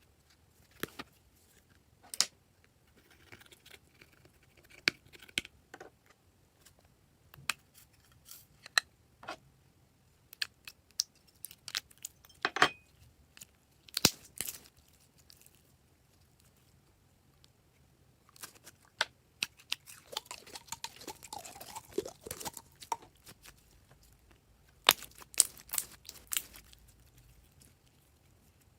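Purple slime being squished and pulled by hand, giving irregular sharp pops and clicks with quiet gaps between, and a denser stretch of crackling about two-thirds of the way through.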